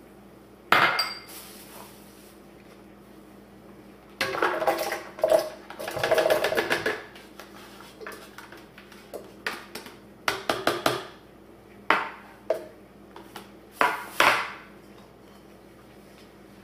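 Kitchen handling sounds as ingredients are dropped into a plastic blender jar: a sharp knock, then a longer rattling pour, then scattered clicks and clatters of dishes and food pieces.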